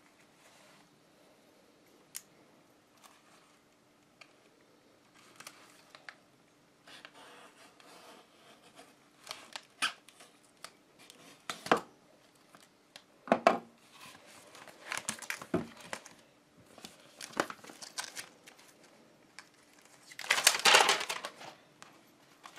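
Self-adhesive Protecto Wrap window flashing tape being unrolled and trimmed: its paper backing crinkles and crackles in scattered sharp bursts after a few quiet seconds, with a longer, louder tearing rustle near the end.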